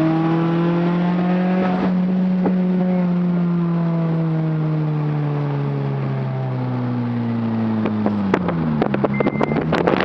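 Modified car's engine and exhaust running hard on a flyby, one strong note falling slowly in pitch for several seconds. Near the end the pitch drops further and a run of sharp cracks and clicks comes in.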